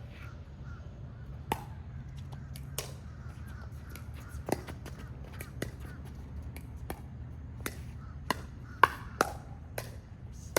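Pickleball rally: paddles striking the hollow plastic ball with sharp, short pocks about once a second, coming quicker and louder in a fast exchange near the end.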